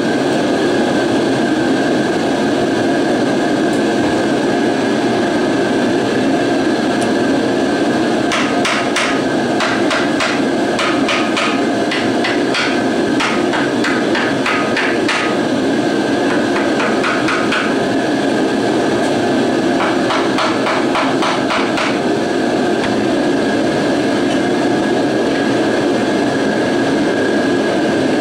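Steady drone of a shop heater. Through the middle come several runs of quick metallic clicks from hand tools working the cover screws of a 1955 Zündapp R150S scooter engine.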